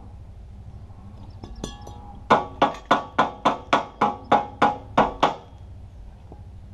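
Hammer striking metal: about a dozen sharp, ringing blows in quick succession, roughly three a second. They start about two seconds in and stop about three seconds later.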